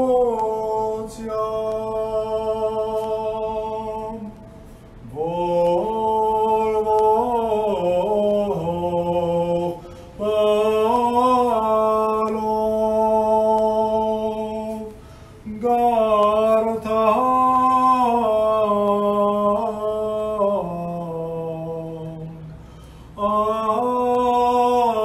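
A single male voice chanting an Armenian liturgical hymn unaccompanied, holding long notes with melodic turns, in phrases of about five seconds with brief breaks for breath.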